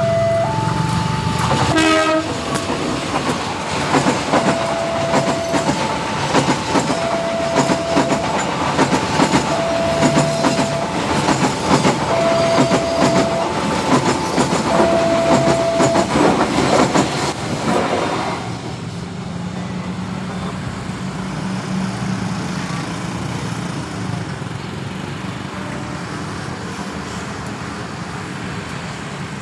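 Level-crossing alarm chiming in two alternating tones while a diesel-hauled passenger train passes. There is a short locomotive horn blast about two seconds in, then rapid clicking of wheels over rail joints. The alarm stops at about sixteen seconds and the train noise fades at about eighteen, leaving a low hum of motorcycle engines waiting at the crossing.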